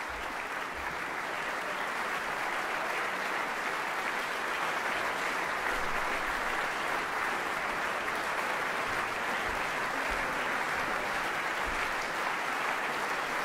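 Concert audience applauding steadily, swelling a little over the first couple of seconds and then holding level.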